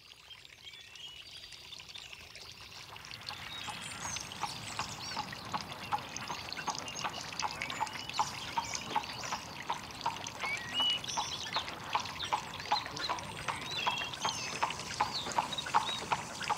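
A natural ambience fading in: running water, birds chirping, and from about four seconds in a steady walking rhythm of sharp knocks, about three a second, growing louder.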